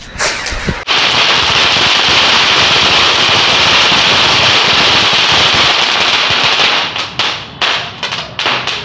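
A bundle of about 25 Kit Kat firecrackers taped together going off at once: a few sharp cracks, then dense, continuous crackling for about six seconds, thinning into separate scattered bangs near the end.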